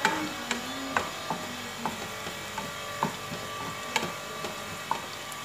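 Wooden spatula knocking and scraping against a non-stick frying pan while stirring chopped onions browning in oil, with irregular knocks about once or twice a second.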